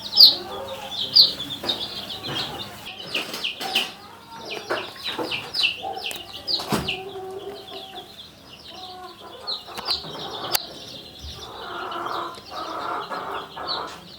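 A crowd of young kienyeji chicks peeping: many short, high, falling calls overlapping without pause. Scattered knocks and rustling run under them.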